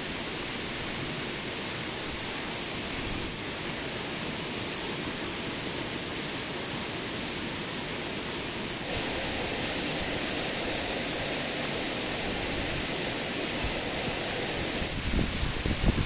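Steady rushing noise of a forest waterfall, with the hiss of a lit gas canister camping stove. About nine seconds in, the sound grows slightly louder and fuller, and uneven low bumps come in near the end.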